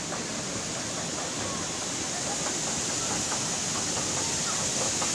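Steady rush of falling water from a large cascade fountain, slowly getting louder.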